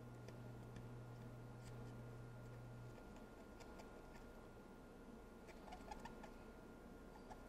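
Near silence with faint, scattered light ticks and scratching, clustered around six seconds in, typical of scrubbing solder flux off a circuit board. A low steady hum stops about three seconds in.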